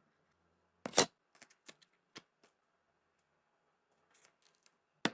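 Small hard clicks and taps from a phone and repair tools being handled: a sharp double click about a second in, a few lighter ticks after it, faint ticking near the end, and one more click at the very end.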